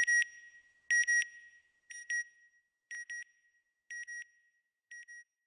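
Satellite-style radio beeps in a sound logo: a pair of short high electronic beeps about once a second, six times, growing steadily fainter.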